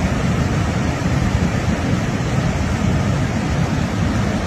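Floodwater of a swollen river in spate rushing past in a steady, unbroken rush, heaviest in the low end.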